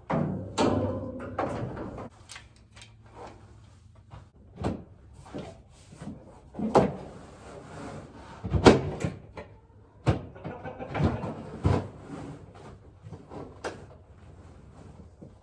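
Irregular knocks and clunks of a heat lamp being fitted onto a 55-gallon drum and secured with a bungee cord. There is a busy clatter in the first couple of seconds, then single knocks every second or two.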